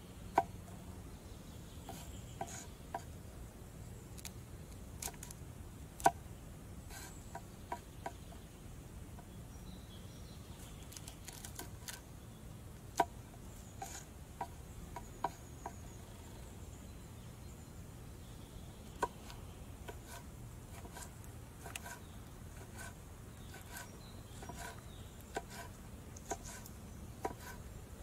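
Chef's knife cutting broccoli and red chili on a wooden cutting board: scattered sharp taps of the blade striking the board, some single and some in quick runs of two to four.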